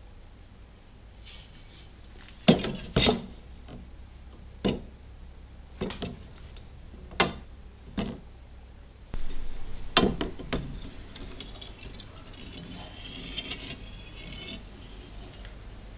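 Metal tools and parts clinking and knocking as they are handled and set down on a workbench: about nine separate clinks over the first ten or so seconds, over a low steady hum, then a faint scraping.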